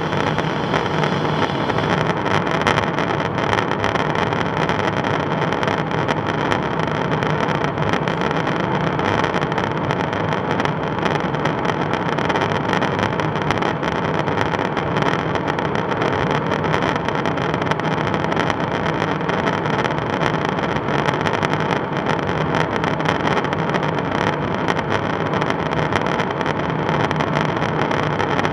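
KC-135 Stratotanker in cruise flight, heard from inside the boom operator's pod: a steady rush of airflow and jet engine noise with a faint constant hum underneath.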